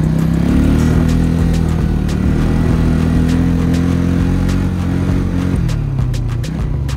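2003 Bombardier Quest 500 ATV's Rotax 500 single-cylinder four-stroke engine running under way, its pitch rising as the quad accelerates and dropping off about five and a half seconds in as the throttle is let off.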